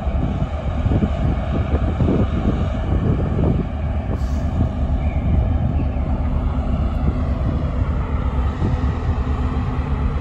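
The large car ferry Ulysses's engines running as it pulls away from its berth: a deep, steady drone. Wind buffets the microphone in the first few seconds.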